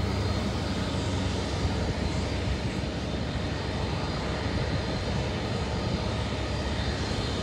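Lockheed C-5 Galaxy's four turbofan engines at takeoff power as the jet rolls down the runway and lifts its nose: a steady noise with a faint high whine.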